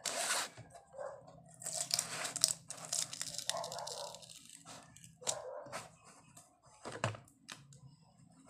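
A seal sticker being peeled off a cardboard box, with bursts of tearing and crinkling as the box and its clear plastic case are handled.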